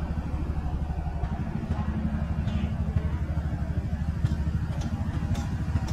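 Motorcycle engine running steadily at low speed, a low rapid putter.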